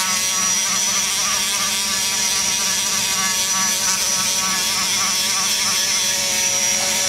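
Die grinder running with a steady high whine, its sanding cartridge roll smoothing the cast aluminum wall of an LS1/LS2 cylinder head's exhaust port, the finishing pass that cleans up the rough-grit marks.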